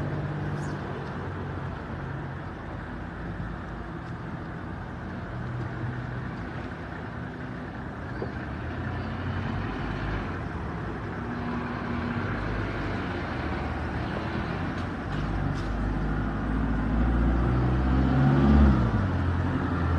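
Toyota Coaster minibus engines running at low speed as the buses move along the street, getting louder near the end with a rising note as one revs up close by.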